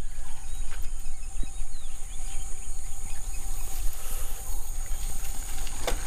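Ragged low rumble, typical of wind buffeting the microphone, over a steady high-pitched drone of insects or crickets.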